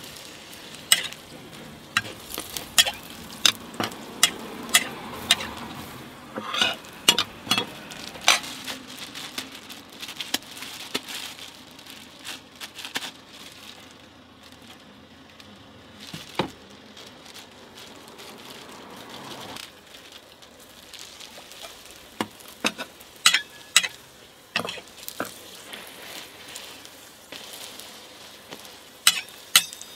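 Hotteok frying in shallow oil on a flat griddle: a steady sizzle, with many sharp clinks and knocks of metal tools, a pancake presser and a turner, against the griddle. The knocks come thick at the start and again near the end, and only now and then in the middle.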